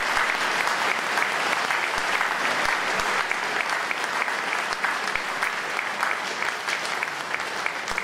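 Audience applause from a hall full of people, a dense patter of many hands clapping that slowly fades.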